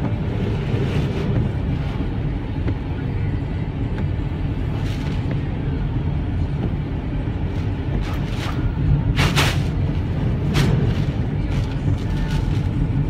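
Steady rumble of a car's engine and tyres on a wet road, heard inside the cabin while driving through heavy rain. Several brief swishes of windscreen wipers and water spray come about five seconds in and again toward the end.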